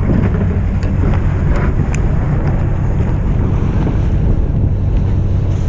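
Fishing boat's engine running under way, with strong wind buffeting the microphone and water rushing past the hull.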